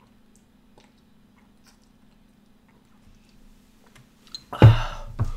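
Soft gulping and swallowing as beer is chugged straight from a bottle. About four and a half seconds in the drinking stops with a sudden loud gasp for breath, and a second short one follows.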